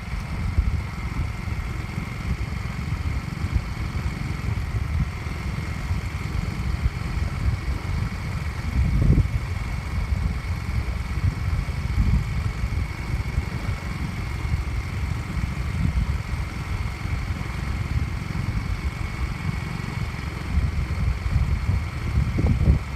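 Vehicle road and engine noise while driving, mixed with wind buffeting the microphone: a dense low rumble that swells briefly twice, with a faint steady whine above it.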